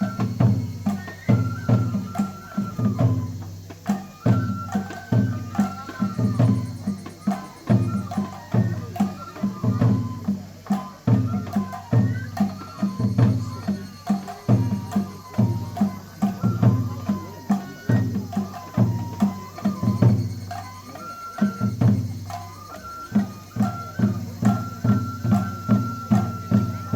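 Japanese festival hayashi music for a lion dance: taiko drums beating a steady rhythm under a shinobue bamboo flute melody, which holds one long note near the end.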